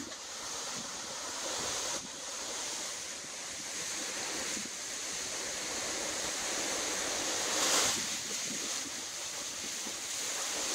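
Hurricane wind of about 40 mph with gusts near 60 mph rushing through palm fronds and buffeting the microphone. It is a steady rush that swells into a stronger gust about eight seconds in.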